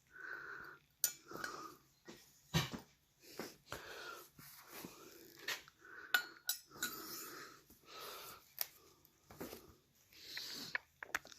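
Wheezy breathing close to the microphone, in repeated breaths, broken by several sharp metallic clicks and clinks as engine valves are handled and set into the cylinder head.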